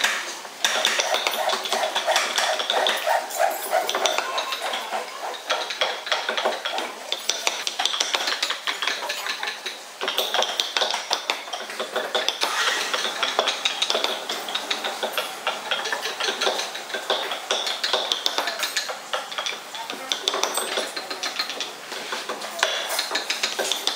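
Steel carving chisel pushed by hand into a small wooden figure clamped in a bench vise: a quick run of short scraping clicks as it pares off small chips, with a brief pause about ten seconds in.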